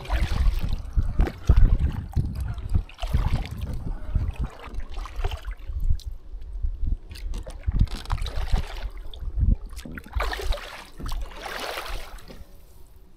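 Kayak paddle strokes dipping and splashing in lake water, a swishing surge every second or two over a low rumble.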